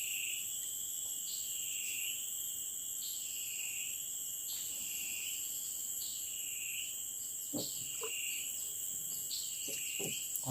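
Chorus of forest insects: a steady high-pitched drone with a second call that swells and dips about once a second. A few faint knocks near the end.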